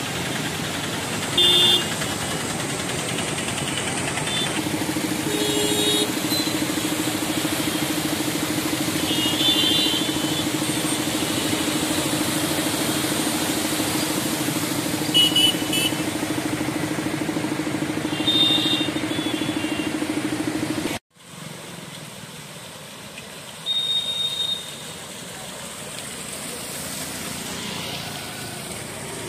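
Traffic on a waterlogged road: auto-rickshaw and motorcycle engines running and tyres wading through floodwater, with short horn beeps now and then and a steady hum through the middle. About two-thirds of the way through, the sound cuts off abruptly and goes on as quieter traffic.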